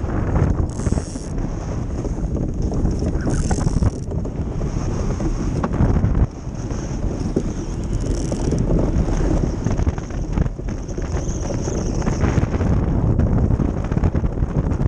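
Wind buffeting the microphone over the rumble and hiss of a wooden ice boat's runners gliding across lake ice, with the hull and rigging rattling. The noise drops suddenly about six seconds in.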